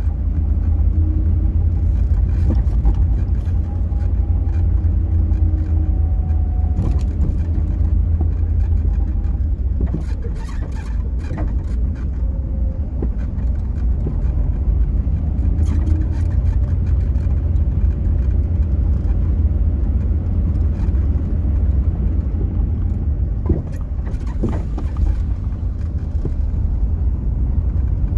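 Car driving at a steady speed, heard from inside: a loud, even low rumble of road and engine noise, with a few faint clicks here and there.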